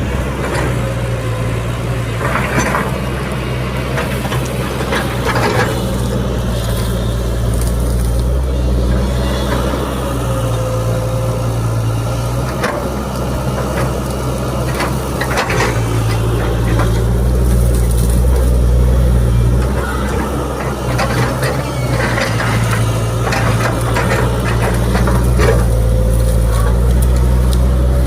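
XCMG 140 crawler excavator's diesel engine running steadily, its note swelling and easing every few seconds, with scattered short metallic clanks.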